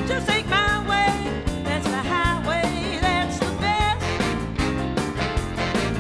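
Upbeat background music with a steady drum beat and a lead melody.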